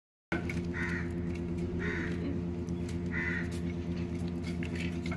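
A crow cawing three times, about a second apart, over a steady low hum.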